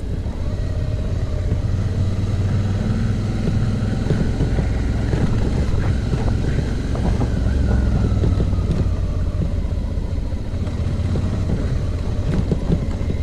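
Suzuki V-Strom motorcycle running steadily at low speed on a rough dirt road, with road and wind noise. The engine note drops slightly about halfway through, and there are scattered small knocks from the bumps.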